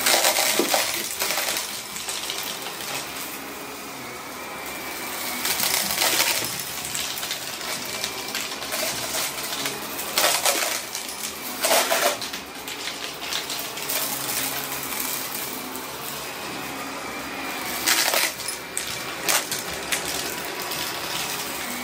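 Vacuum cleaner running over carpet, its motor humming steadily with a light whine, broken every few seconds by short loud bursts of rattling and crunching as confetti is sucked up.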